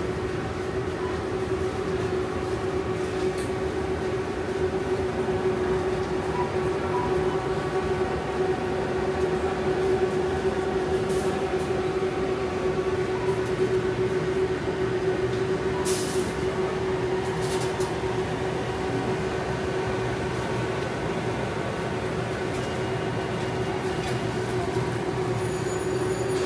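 Supermarket ambience: a steady mechanical hum with one droning tone, and a few short clicks or clatters around the middle.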